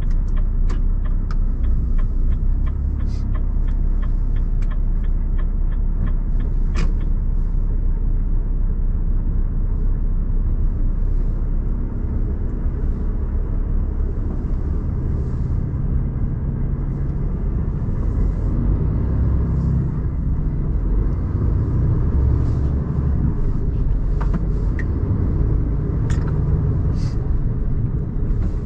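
Renault T480 truck heard from inside the cab, pulling away and driving: a steady low engine and road rumble. Over it, a regular ticking at about three clicks a second, typical of the turn-signal indicator, stops about seven seconds in.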